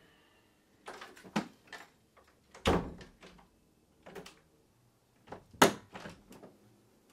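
A wooden bedroom door pushed shut with a heavy thud about a third of the way in, after a few lighter knocks. Then clicks and rattles of the brass doorknob as a card door hanger is slipped over it, with one sharp click a little past halfway.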